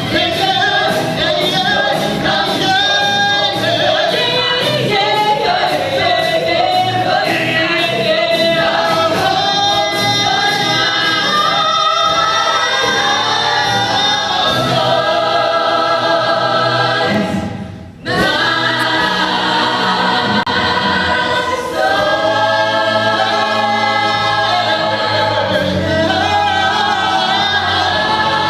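Gospel choir singing with musical accompaniment, the music dropping away for a moment about two-thirds of the way through before the choir comes back in.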